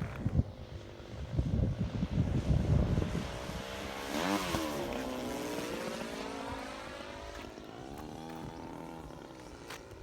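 Gas two-stroke engine of an RC Yak 54 aerobatic plane buzzing in flight. Its pitch dips sharply and climbs again a little after 4 seconds, then swings up and down as it manoeuvres. Wind buffets the microphone for the first few seconds.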